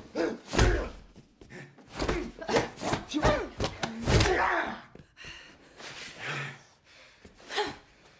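Film fight sound effects: an irregular series of punch and kick impacts and swishes, mixed with short grunts and shouts from the fighters.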